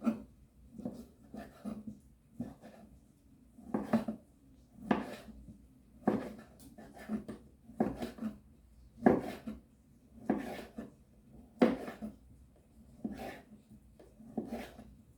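Kitchen clatter: dishes and utensils knocking and being set down on a wooden surface, in irregular knocks about once a second.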